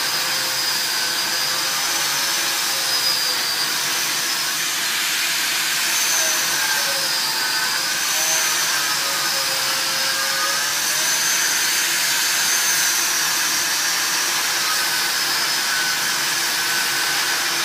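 Angle grinder grinding steel, its whine wavering up and down in pitch as the pressure on the disc changes, over a steady rushing hiss of grinding and of the TEKA Filtoo extraction unit's fan drawing air through its arm.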